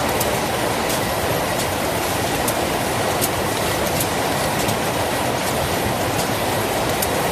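Automatic cartoning machine running: a steady mechanical clatter with sharp clicks a little more than once a second as the conveyor carries cartons through.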